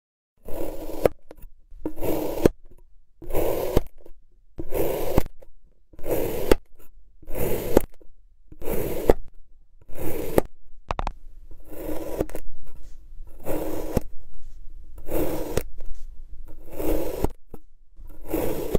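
A ceramic knife slicing through a block of compressed China clay, one crunchy, scraping cut after another at a steady pace, about a dozen cuts, some ending in a light tap of the blade on the board.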